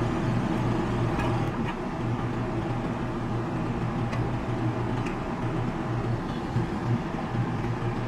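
A steady low mechanical hum, with a few faint light clicks over it.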